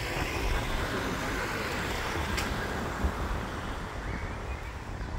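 Street traffic noise: a car passing, its tyre and engine noise swelling and then fading, over a low, uneven rumble.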